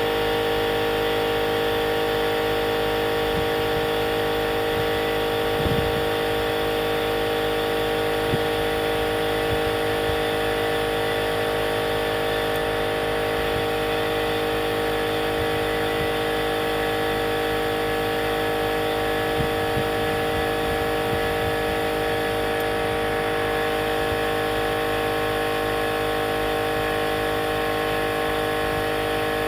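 Kobalt portable electric air compressor running steadily, its motor holding one even pitch as it inflates a plugged truck tire toward 40 psi.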